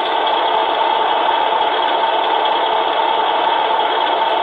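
Beier USM-RC-2 sound module in a 1/14 RC truck playing a diesel truck engine idling through the model's speaker, a steady unbroken sound.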